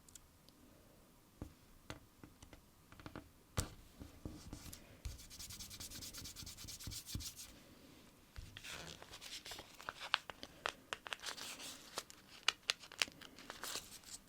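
Close-miked fingertips working stickers onto a paper sticker-book page: scattered light taps and clicks, then a couple of seconds of steady rubbing as the paper is smoothed about five seconds in, and more rubbing with quick sticky clicks and crackles from about eight and a half seconds on.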